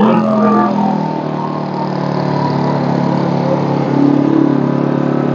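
Portable inverter generator's small petrol engine running steadily just after starting, with its choke back in the run position.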